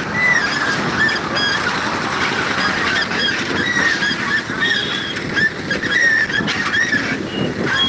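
Busy street traffic rumbling, with a constant flurry of short, high chirps and squeaks over it.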